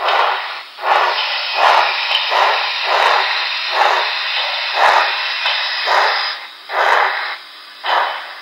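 Model steam locomotive's Paragon3 sound decoder playing steam exhaust chuffs through its small onboard speaker, about two a second, with a steady steam hiss behind them that stops about six seconds in.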